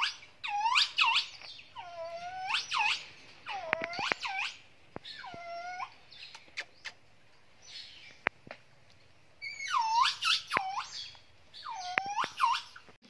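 Baby pig-tailed macaque giving repeated high-pitched calls, each dipping in pitch and rising again, in bunches of two to four, with a lull of about three seconds in the middle. A few sharp clicks fall between the calls.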